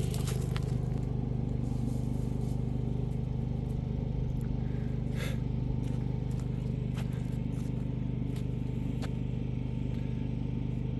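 An engine running steadily at an even speed, with a low hum and a fast, even pulse, and a few faint brief scrapes over it.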